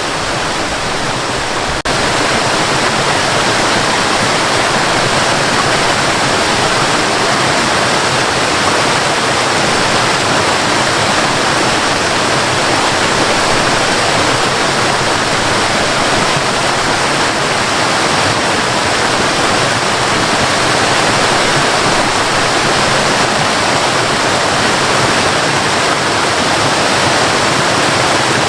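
Cascading water rushing steadily, a dense even roar of falling water. About two seconds in it dips for an instant and comes back slightly louder.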